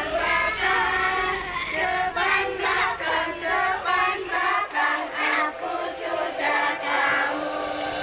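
A group of high children's voices singing a melody together, with no instruments, each note held about half a second.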